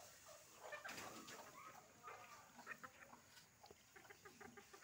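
Faint farmyard animal sounds: short clucking calls like those of chickens, mixed with scattered small clicks and rustles.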